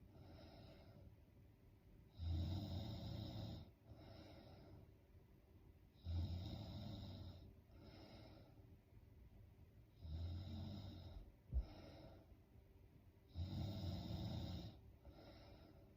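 A woman snoring in her sleep: four rough snores evenly spaced about three and a half seconds apart, each about a second and a half long, with a softer breath after each. A single sharp click comes just after the third snore.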